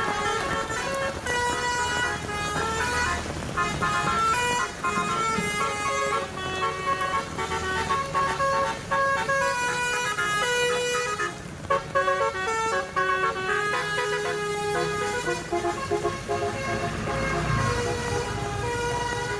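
Basuri telolet horn on a bus playing a melody: a fast run of short, stepped musical horn notes, with engine rumble underneath.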